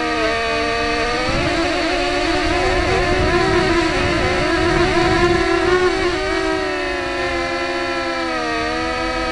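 Heli-Max quadcopter's electric motors and propellers whining, several close pitches beating against each other, sagging and rising as the throttle changes. Rushing wind noise runs underneath and is strongest mid-way.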